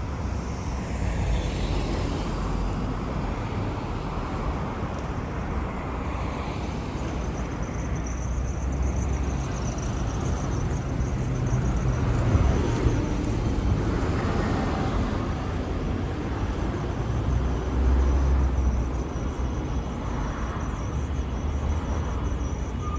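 Road traffic passing steadily, with a low rumble that swells as heavier vehicles go by about halfway through and again later.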